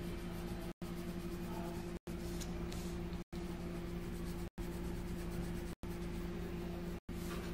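Pencil shading on paper, a soft scratchy rubbing, over a steady low electrical hum. The sound drops out for an instant about every second and a quarter.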